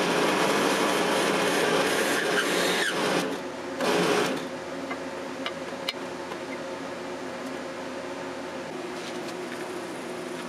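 Drill press boring a hole through a piece of antler. The cutting is loud and rough for about the first three seconds and again briefly around four seconds in, then the motor runs on more quietly with a steady hum.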